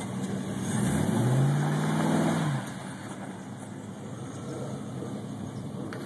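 Lifted 2500HD pickup truck's engine revving up about a second in, holding for about a second and a half, then dropping back to a steady low running sound as the truck drives slowly across the mud.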